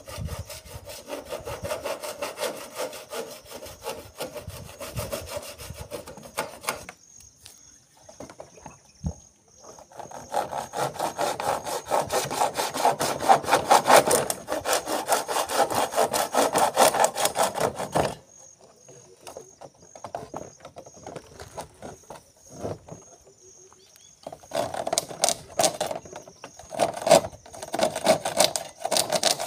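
Hand hacksaw cutting through a rain gutter with quick back-and-forth strokes, in three bouts separated by pauses of a few seconds.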